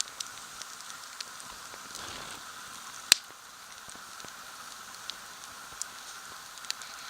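A steady hiss with scattered light ticks and one sharp click about three seconds in.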